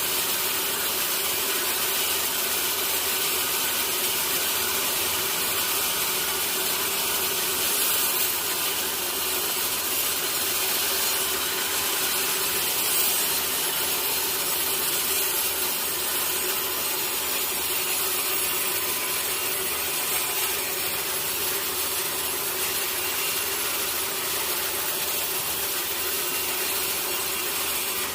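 Sawmill saw cutting through a teak log: a steady, unbroken hiss of blade in wood with the machine's hum underneath.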